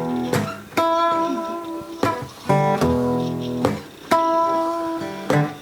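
Background music: an acoustic guitar strumming blues chords, with no singing in this stretch.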